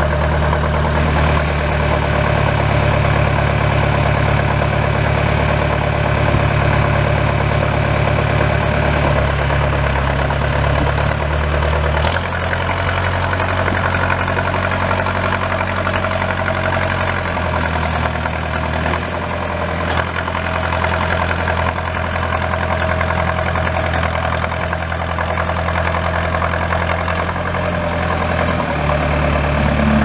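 Case 4-390 four-cylinder diesel engine of a Case 480E backhoe idling steadily. Its low hum shifts in tone a few times, near the middle and again near the end.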